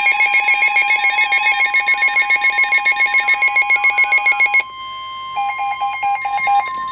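Emergency alert tones: a steady high tone with a rapidly pulsing, buzzy alarm tone over it. The pulsing stops about four and a half seconds in, comes back for about a second, and the steady tone carries on to the end.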